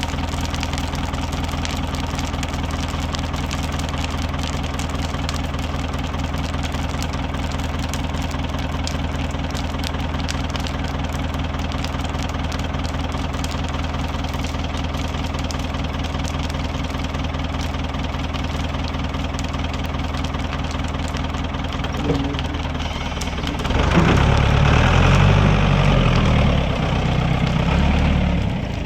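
Manitou telehandler diesel engine idling steadily with an intermittent popping, then revved up for several seconds near the end.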